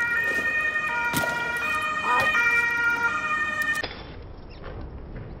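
An emergency-vehicle siren: sustained high tones stepping between pitches. It cuts off abruptly almost four seconds in, leaving quieter background noise with a few faint knocks.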